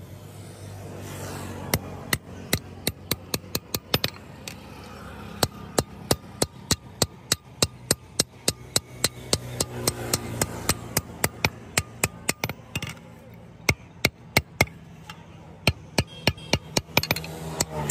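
Hand hammer striking a sickle blade on a block anvil: a long series of sharp metallic blows, a few a second, in runs broken by short pauses.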